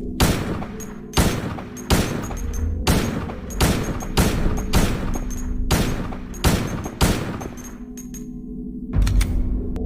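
Beretta 92FS Centurion 9mm pistol firing about ten single shots in a steady run, each a little under a second apart, with another sharp report about nine seconds in. Steady low music tones play underneath.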